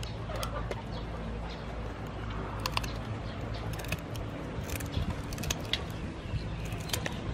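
Scissors snipping through raw mantis shrimp shells: a scattering of short sharp clicks over a steady low background hum.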